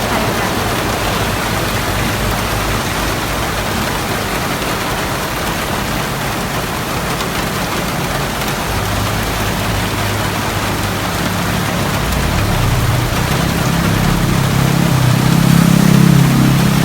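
Heavy rain falling as a steady, loud hiss. A vehicle engine's low hum joins it about halfway through, growing louder toward the end.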